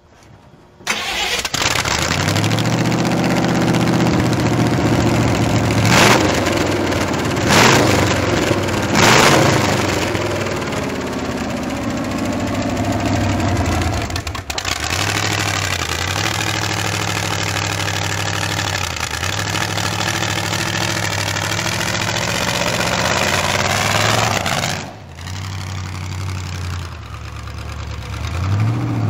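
Demolition derby car engine starting about a second in, revved three times in quick blips, then running at a steady fast idle. Near the end it drops back to a lower idle and then picks up again.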